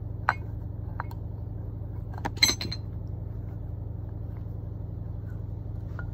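Metal clicks and clinks of an Allen key working bolts on a fuel rail: two light clicks, then a louder cluster of ringing clinks about two and a half seconds in, over a steady low hum.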